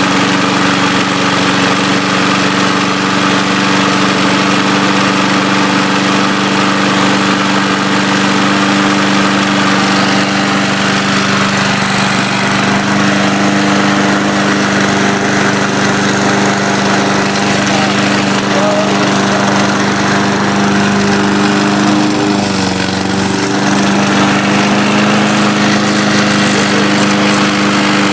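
An old lawn mower's small engine running loud and steady just after a cold start on starting fluid. About three quarters of the way through, its speed dips briefly and then recovers.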